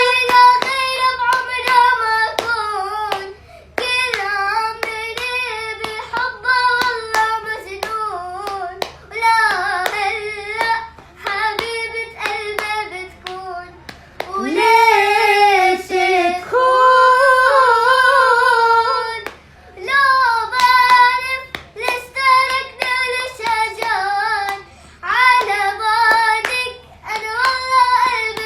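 A girl singing an Arabic song solo in a high voice, with sharp hand taps sounding through it and short pauses between phrases.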